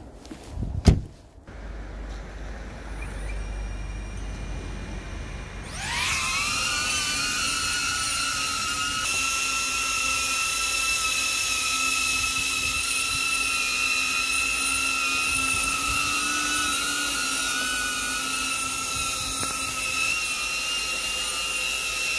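A sharp thump about a second in. At about six seconds the DJI Avata FPV drone's motors and propellers spin up with a rising whine, then settle into a steady high-pitched hover whine as it holds in place to warm up in sub-zero cold.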